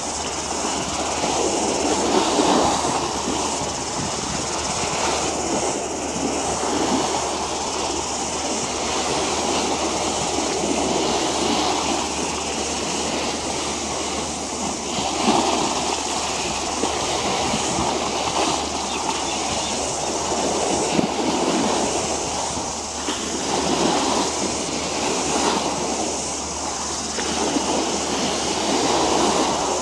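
Harbour water washing against the shore, surging every few seconds over a steady outdoor rumble.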